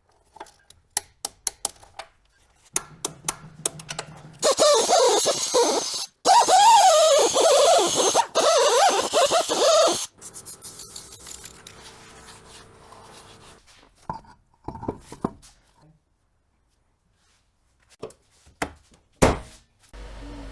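Workshop tool sounds: a series of metal clicks and clinks, then a loud power tool running for about six seconds with a wavering pitch, followed by a quieter steady hum and a few knocks near the end.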